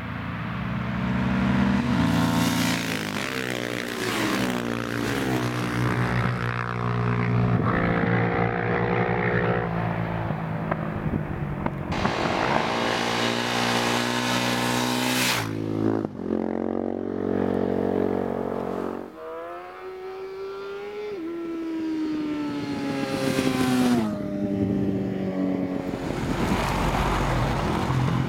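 Supermoto motorcycle engines revving and accelerating, the pitch climbing and then dropping back at each gear change. The sound switches abruptly several times between takes.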